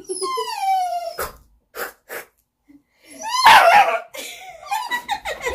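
Dog whining for a ball held out of reach: a long falling whine, a few short puffs of breath, then a louder wavering whine-yelp about three and a half seconds in.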